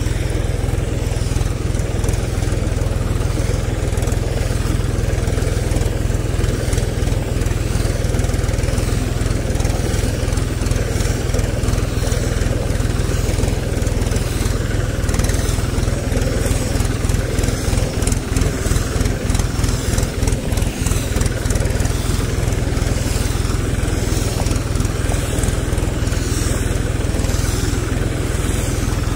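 Mahindra 255 DI tractor's two-cylinder diesel engine running steadily under load as it drives a rear-mounted sprayer, which is blowing out a cloud of spray. There is a slight waver in the engine note about two-thirds of the way through.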